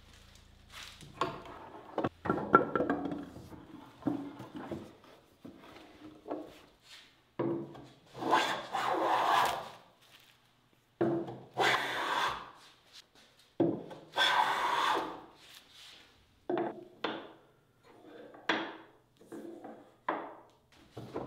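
Hand plane cutting shavings along the edge of a wooden board in repeated strokes, jointing the edge square to the face. Several long passes are followed near the end by a run of shorter, quicker ones.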